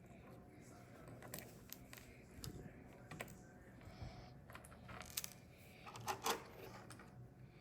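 Small plastic Lego pieces clicking and clattering as they are handled, with irregular light clicks and a louder clatter about six seconds in.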